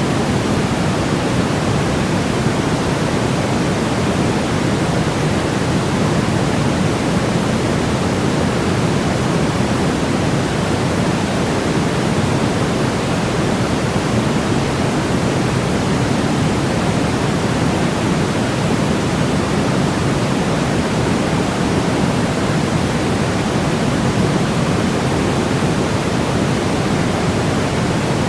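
Steady, unbroken electronic noise played as a baby sleep aid: an even rushing hiss with no change or pattern, weighted toward the low end rather than bright.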